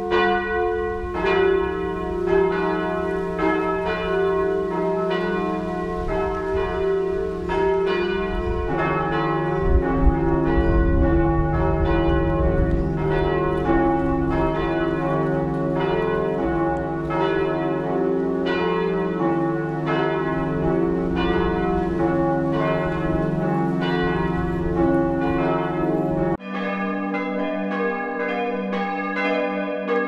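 A full peal of several large church bells swinging and striking in overlapping, uneven rhythm, rung in mourning for a death. About four seconds before the end it switches abruptly to another church's peal, with the deepest bell tones gone.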